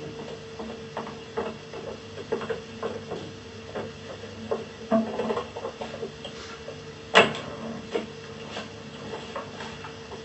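Irregular light knocks and clicks over a steady hum, with one sharper knock about seven seconds in.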